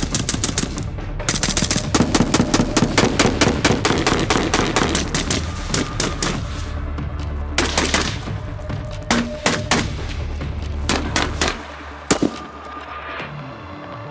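Semi-automatic rifle fire: rapid strings of shots for the first several seconds, then shorter strings and single shots, over background music.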